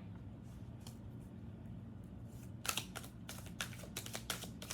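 Tarot cards being handled: after a couple of seconds of low steady hum, a quick run of light clicks and taps begins about two and a half seconds in.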